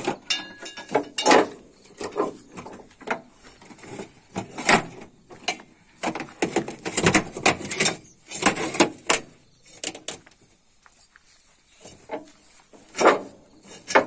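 New steel feeder chain of a Bharat combine harvester being worked onto the feeder drum sprocket: irregular metallic clanks and rattles of chain links and slats against the steel feeder housing. The clatter is dense at first, thins out after about ten seconds, and one loud clank comes near the end.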